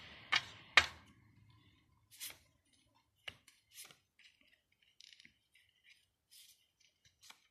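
Handling noise on a glass tabletop: two sharp taps within the first second, then faint scattered clicks and short rustles.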